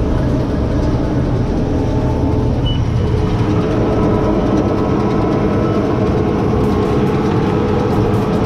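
Tractor engine running steadily under load while it drives a McHale baler through the PTO shaft, a continuous low drone. A steady higher hum joins about three seconds in. The outfit is working normally.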